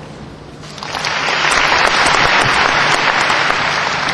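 Audience applauding, swelling up about a second in and easing off near the end.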